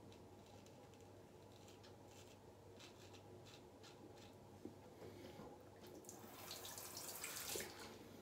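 Faint strokes of a Dubl Duck Goldedge straight razor scraping stubble through shaving lather, then, about six seconds in, water running briefly for a second or two.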